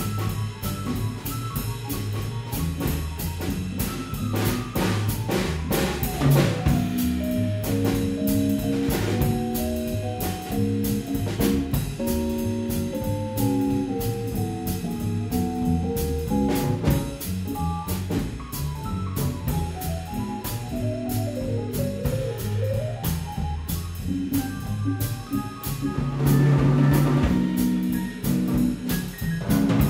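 Live small-group jazz: a piano solo with running melodic lines and chords over walking upright bass and a drum kit keeping time on the cymbals.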